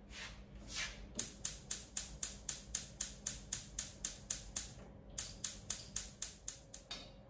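Gas hob's electric spark igniter clicking rapidly, about four clicks a second, as a burner is being lit. The clicks come in two runs with a short pause between them.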